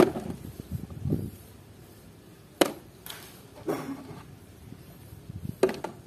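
Hard plastic toys being handled and set down on a tray: three sharp knocks, at the start, about two and a half seconds in and near the end, with softer clunks in between.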